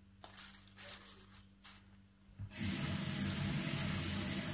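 A few light handling clicks, then about halfway through a kitchen tap is turned on and water runs steadily onto salad leaves in a plastic colander held over the sink.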